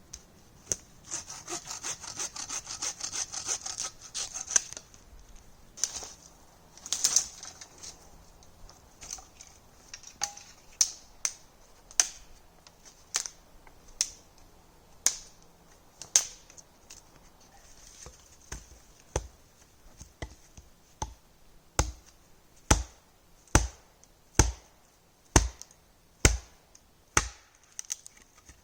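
A hand saw cutting dead wood in quick back-and-forth strokes for a few seconds. Then a long run of separate sharp strokes about one a second, becoming heavier and deeper near the end.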